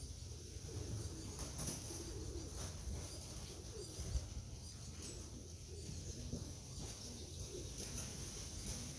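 Racing pigeons cooing, low wavering calls coming and going over a steady low rumble, with a single knock about four seconds in.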